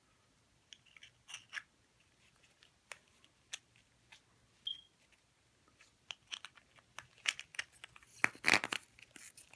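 Plastic coin capsules being handled and fitted over a coin: scattered small clicks and taps, with a burst of plastic crinkling and crackling near the end.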